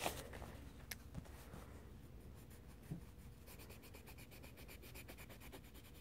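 Faint colored-pencil scribbling on a paper colouring page: from about halfway through, a fast, even scratching of roughly ten strokes a second. A small tap and a soft knock come before it.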